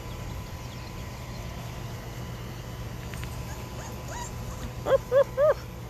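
Great Bernese puppy (Great Pyrenees × Bernese Mountain Dog), 26 days old, whimpering. Three short rising-and-falling whimpers come close together near the end, after a faint squeak.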